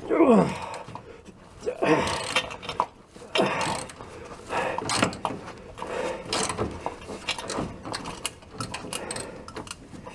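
A wrench working a seized, rusty bolt loose: a series of squealing groans that fall in pitch, the loudest right at the start, mixed with clicks and knocks of the tool on metal.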